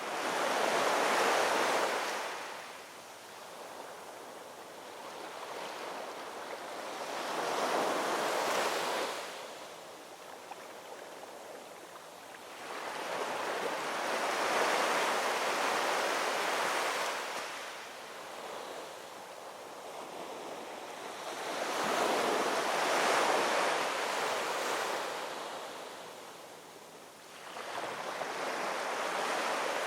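Ocean surf: waves rolling in and washing back, a slow rise and fall of rushing noise about every seven seconds.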